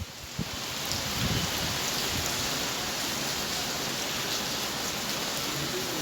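Heavy rain falling steadily, an even hiss that swells up over the first second and then holds.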